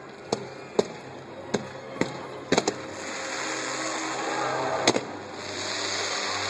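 Fireworks going off: an irregular string of sharp bangs and pops, with a crackling hiss swelling about three seconds in.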